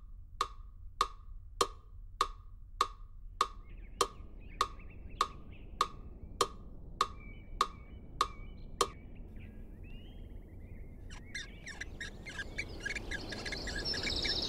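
Metronome ticking steadily at 100 beats per minute, about fifteen sharp wooden-sounding clicks, stopping about nine seconds in. Faint birdsong comes in partway through and grows with outdoor ambience near the end.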